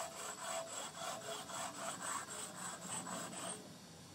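Carborundum block rubbed back and forth along the wet edge of a precast concrete bench: an even, rhythmic rasping of about three to four strokes a second that stops about three and a half seconds in. The abrasive is grinding the sharp arris into a rounded edge of about 5 mm radius.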